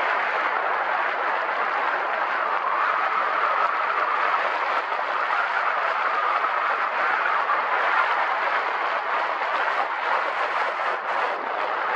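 Steady rushing of wind over the camera's microphone, an even roar that swells only slightly.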